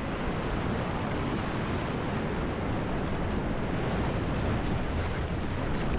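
Rushing whitewater of a river rapid, a steady noisy rush of water, with wind buffeting the microphone.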